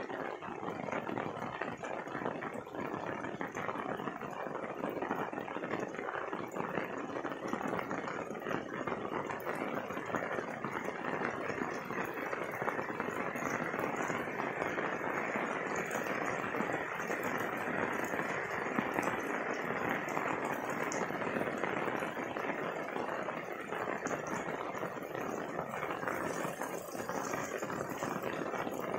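Steady rain falling, an even hiss and patter of many drops on the lane and surroundings, unchanging throughout.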